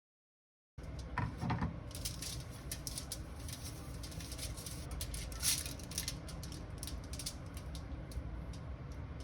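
Quick, irregular light clicks and taps over quiet room tone, starting about a second in after dead silence.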